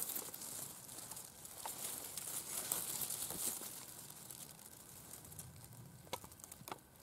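Faint rustling and crackling of dry fallen leaves and grass, with a few sharper crackles about six seconds in.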